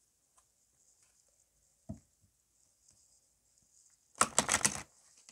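A deck of Oracle of the Unicorns oracle cards being shuffled by hand: a single soft tap about two seconds in, then a quick run of cards flicking against each other near the end.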